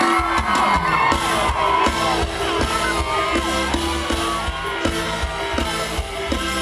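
Live mor lam band music played loud through a PA system, with a steady pulsing bass beat and wavering melody lines, while the crowd shouts and whoops over it.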